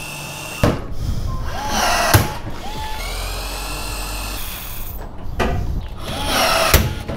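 Skil electric drill boring into aluminum bar, its motor spinning up and winding down in several short bursts, with a sharp snap about two seconds in and another near the end.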